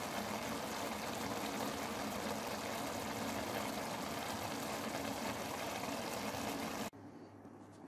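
Chicken pulao rice boiling in its pot, the water bubbling steadily as it cooks down into the grains. It cuts off abruptly about seven seconds in.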